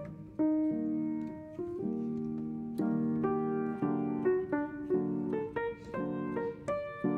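Background piano music: a melody of single notes and chords, each note struck and left to ring.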